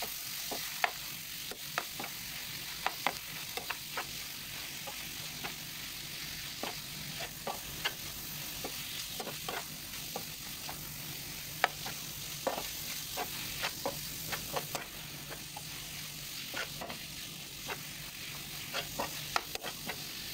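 Shrimp with tomato paste and herbs sizzling in hot oil in a pan, while a metal spatula stirs and scrapes the mixture, clicking against the pan at irregular moments.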